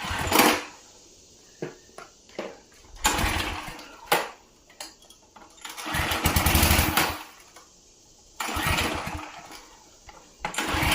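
Small gasoline engine of a pressure washer being pull-started with the recoil cord about five or six times; each pull gives a short burst of cranking, and the engine does not keep running between pulls.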